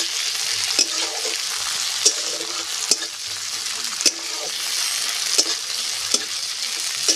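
Chopped onions and tomatoes sizzling in hot oil in a metal kadai, with a steady high hiss. A metal spatula scrapes and knocks against the pan about once a second as the vegetables are stirred, just after the tomatoes went in.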